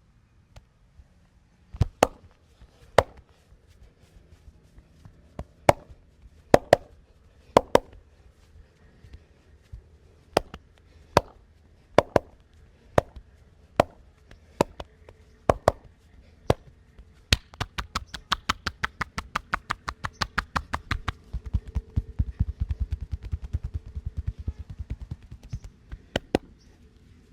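Percussive massage strokes with the hands: sharp single slaps about once a second, then about two-thirds of the way through a fast run of chopping strikes, several a second, for about nine seconds.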